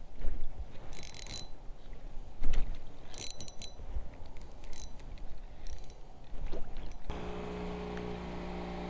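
Knocks and short rattling bursts from handling a spinning rod, reel and paddle in a plastic kayak. About seven seconds in, the steady drone of a passing motorboat's engine takes over.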